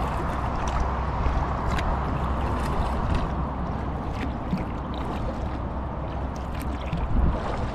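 A kayak being paddled: water gurgling and splashing off the paddle and along the hull, with scattered drips and light ticks, over a steady low rumble.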